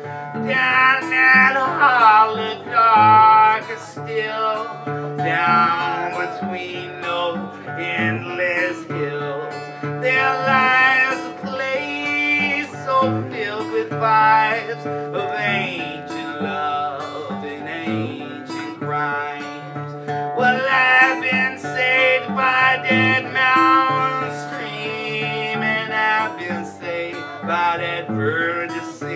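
A man singing with his own acoustic guitar accompaniment, a live solo blues song, his voice sliding between held notes over the plucked and strummed chords.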